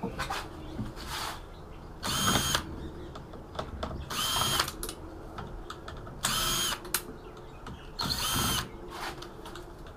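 Cordless power screwdriver spinning screws out of a metal chassis in four short whirring runs of about half a second each, roughly two seconds apart. Light clicks of handling come between the runs.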